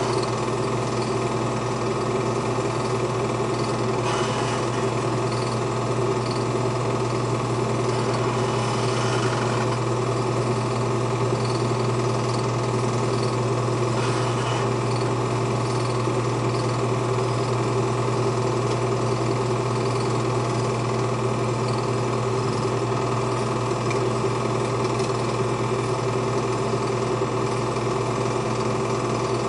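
Film projector running with a steady mechanical whir that does not change.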